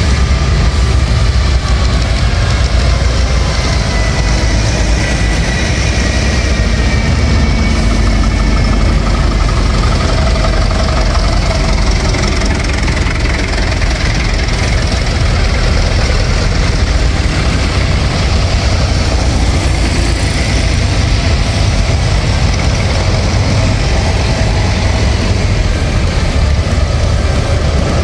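Tractor engines running steadily and loudly, a deep continuous rumble.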